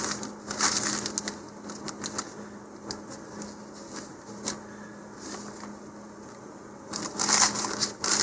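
Thin plastic parachute sheet crinkling and rustling as it is unfolded and spread out by hand. It is loudest in the first second or so and again about seven seconds in, with light crackles in between.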